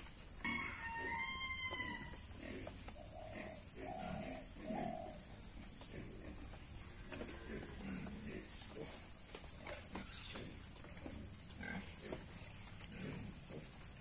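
Piglets grunting in short repeated low sounds as they forage in wet vegetation, over a steady high insect drone. A short pitched call sounds about half a second in.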